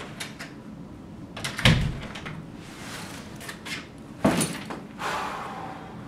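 A door opening and shutting, heard as two loud knocks, about one and a half seconds in and again just after four seconds in.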